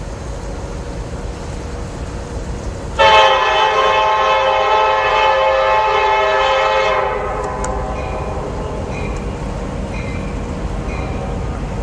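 Approaching diesel locomotive sounding its air horn in one long blast that cuts in sharply about three seconds in and stops about four seconds later. The train's low rumble runs underneath and carries on after the horn.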